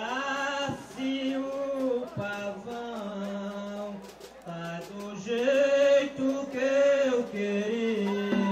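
A man singing an improvised maracatu rural verse unaccompanied, in held phrases about a second long that bend up and down in pitch.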